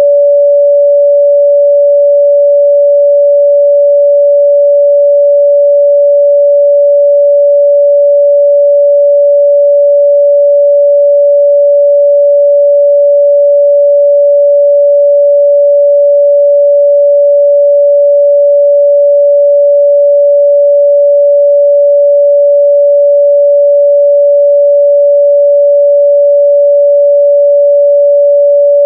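A steady, unbroken 574 Hz sine-wave test tone, a single pure mid-range pitch held at constant loudness.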